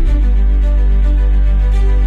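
Background music: sustained instrumental notes over a steady bass.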